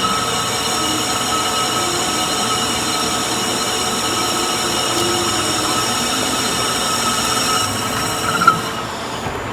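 Metal-cutting machine tool running under cut, a steady high-pitched squealing whine over a noisy rumble. A sharp click comes about eight and a half seconds in, and the cutting noise then drops away.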